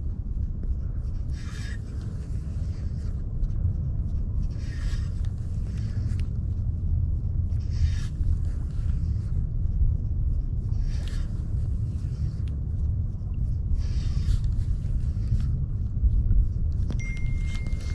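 Wind buffeting the microphone, a steady low rumble, with a soft hiss swelling and fading every three seconds or so. A steady high tone comes in near the end.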